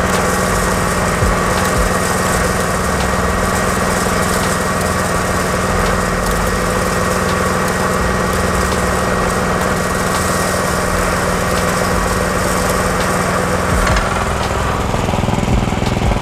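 Engine-driven FFC 15 disk mill running steadily while mung beans are fed in and ground into flour: a small engine's steady drone with the mill's whirr.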